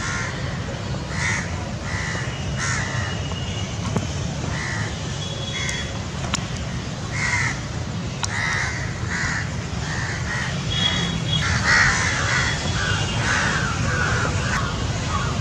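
A flock of crows cawing, many birds calling over one another in short, repeated caws that grow busiest about three quarters of the way through.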